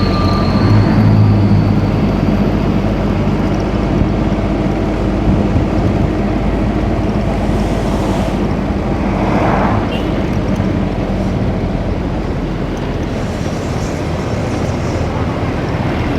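An engine running steadily with a low hum, with a brief noisy swell about nine seconds in.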